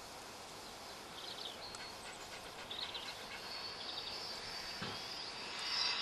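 Outdoor background noise with a few short, faint bird chirps, and a high hiss that swells and grows louder near the end.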